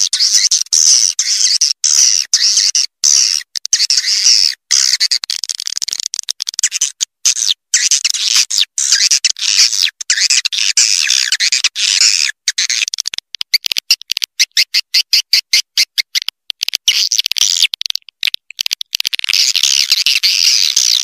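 A swiftlet lure recording plays: edible-nest swiftlets twitter in high, dense chirps, chopped by abrupt short gaps. Around the middle, a rapid run of short clicking chirps comes several times a second.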